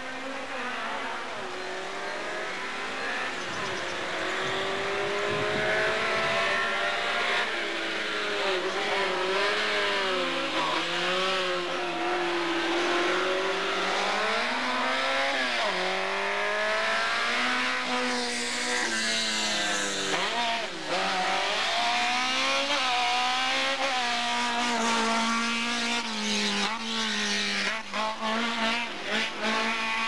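Race car engine revving hard up and down again and again through the slalom gates, pitch climbing and dropping with each throttle lift and gear change, with tyre squeal. A few sharp knocks come near the end.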